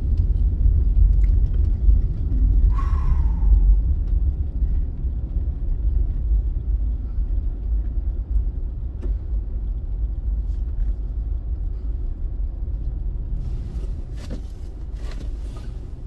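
In-cab noise of a vehicle driving slowly on a snow-packed street: a steady low rumble of engine and tyres. It eases off slightly near the end, with a brief falling tone about three seconds in and a few light clicks toward the end.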